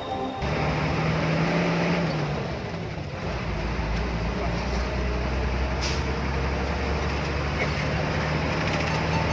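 Bus engine running at cruising speed with a steady low drone under broad road and tyre noise, heard from inside the cabin. Background music cuts off right at the start.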